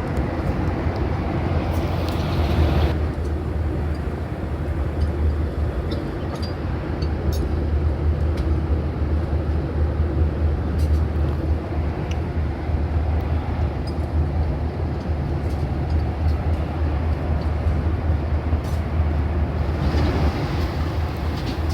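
Steady cabin drone of a Boeing 737-800 in flight, the engine and airflow noise heard from inside the cabin as a deep, even rumble, with a few faint clicks.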